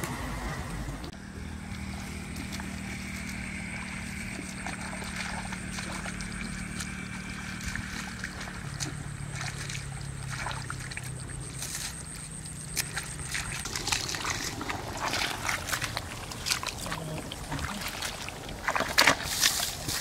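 Wet mud and shallow water sloshing and splashing as hands dig through a flooded, harvested rice paddy. The clicks and splashes grow busier and louder in the last few seconds. A steady low hum with a faint high tone runs through the first dozen seconds and then stops.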